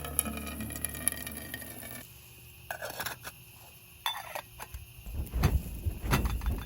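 Background music ends about two seconds in. After it come scattered clinks and knocks of cookware being handled, with heavier knocks near the end.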